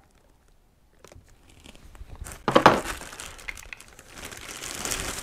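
Plastic wrapping crinkling and rustling as a bagged mini chainsaw is pulled out of its hard plastic case, starting about a second in, with one louder knock about two and a half seconds in.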